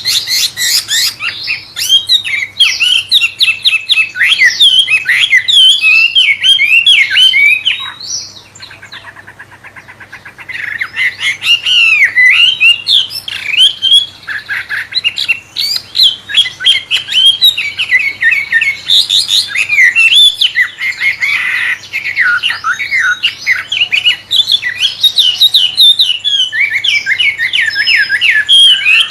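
A wambe songbird singing a fast, varied, murai-like song of rapid rising and falling whistled and harsher squawky notes, with a quieter pause of about two seconds some eight seconds in before the song resumes.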